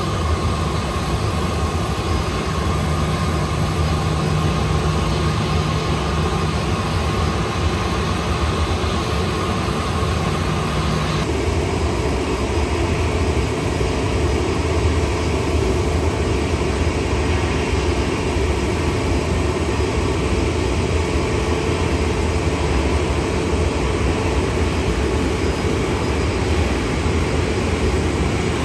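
Airliner jet engines running: a steady rumble with a whine from aircraft taxiing. About eleven seconds in it changes suddenly to the steady engine noise of a Boeing 787-9 on approach.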